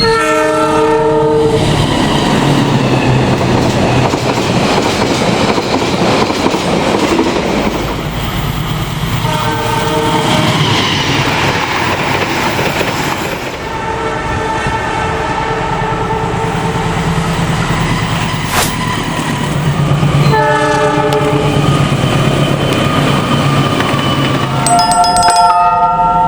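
A diesel locomotive's multi-tone horn sounding the semboyan 35 signal about five times, one blast held for several seconds midway, over the continuous rumble and wheel clatter of a moving train.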